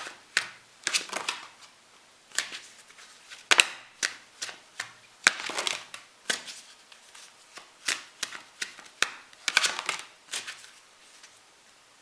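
Tarot cards being shuffled and set down: a run of irregular sharp snaps and rustles that stops shortly before the end.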